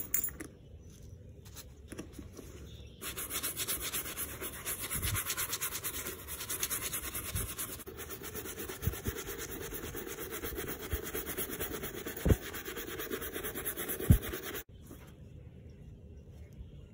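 Nitrile-gloved hand rubbing briskly over the smooth leather of a vintage Coach Legacy Companion handbag in fast, even strokes. It starts about three seconds in and cuts off abruptly near the end, with two soft thumps from handling the bag just before it stops.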